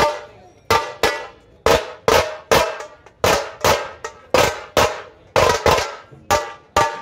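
Dhol-tasha drums beating a slow, heavy rhythm: loud single strikes, often in pairs, a little over two a second, each ringing out briefly.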